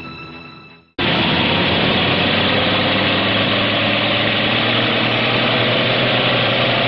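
Music fades out in the first second. Then the steady running of a motor vehicle's engine, a travel sound effect, starts abruptly and carries on evenly.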